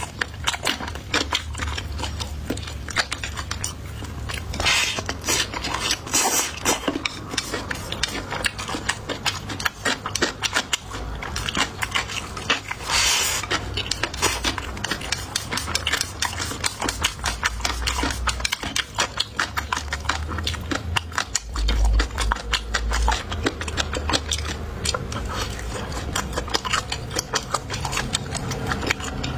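Close-miked chewing and crunching of food, with many rapid wet clicks and now and then a louder crunch.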